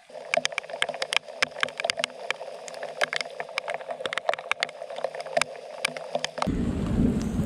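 Raindrops tapping in quick, irregular sharp ticks over a steady low hum; about six and a half seconds in, a loud low rumble takes over.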